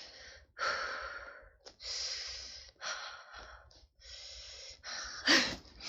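A woman breathing audibly close to the microphone: a series of about six short, breathy exhalations, the one near the end louder with a brief voiced catch.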